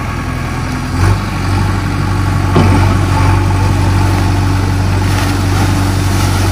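Diesel engine of a JCB 3DX backhoe loader running, its note rising and strengthening about a second in as the backhoe hydraulics take load. The arm works with a sharp knock about halfway through, and river water splashes down as the bucket empties over a tractor.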